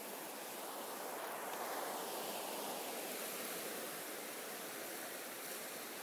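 Gulf of Mexico surf breaking and washing up on a sand beach: a steady rushing wash that swells slightly a second or two in.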